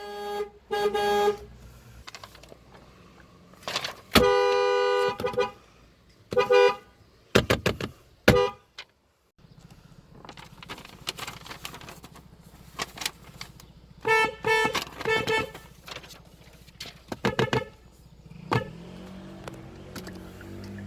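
Car horn honking in an uneven pattern: two short toots at the start, one long blast of about a second and a half, scattered short toots, then a quick run of toots and a few more near the end.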